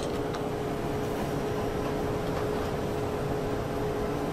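Steady machine hum with a steady mid-pitched tone: room tone of a lab with instruments running.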